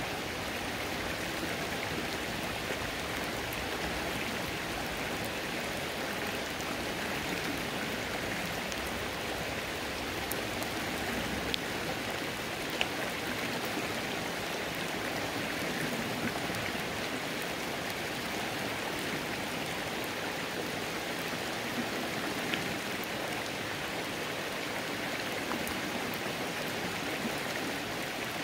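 Steady rush of a flowing creek with rain falling on it, the patter of drops mixed into the running water, and a few faint sharp drips here and there.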